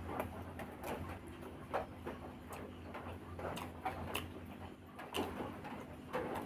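Close-up eating sounds: irregular wet chewing and mouth smacks, over a low steady hum.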